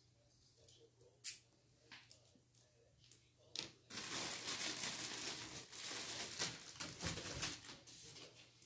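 Small metal hardware, a wheel bolt and washers, clicking a few times as it is handled and set down on a concrete floor, the last click the loudest. Then plastic packaging wrapping crinkles and rustles for about four seconds as it is pulled at.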